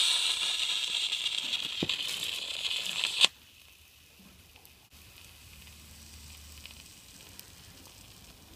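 Electric arc sizzling inside a 16 A AC switch that has been turned off on 6 A of DC from solar panels: the switch cannot break the DC current, so the arc keeps burning across its contacts. The loud hiss cuts off about three seconds in with a sharp crack.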